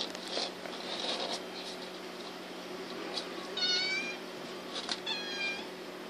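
Semi-flat Persian kitten giving two short, high-pitched mews about a second apart, with soft scuffling and scratching of kittens clawing a sisal-rope scratching post in the first second or so. A steady low hum runs underneath.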